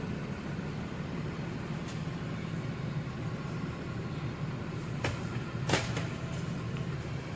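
Steady low hum of a parked coach bus's running machinery, heard from inside the cabin, with two short knocks about five and six seconds in.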